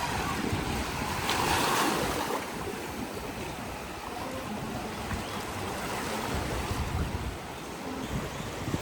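Pacific Ocean surf washing onto the shore, with one wave swelling louder about a second and a half in. Wind buffets the microphone as a low rumble.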